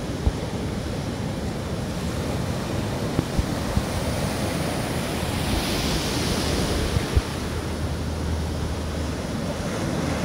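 Heavy surf breaking and rushing, with wind buffeting the microphone and a wave crashing louder about six seconds in. In the last few seconds the low steady hum of the fishing boat's engine comes in as it nears.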